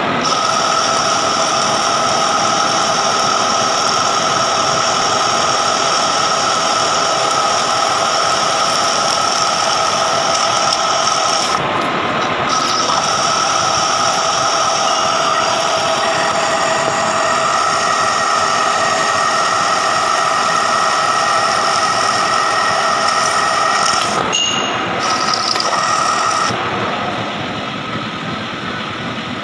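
Metal lathe turning steel with a carbide insert under a deep cut and feed: a steady cutting hiss with a high, ringing squeal over it. About two-thirds of the way through, the high part of the squeal changes, and near the end the sound drops a little quieter.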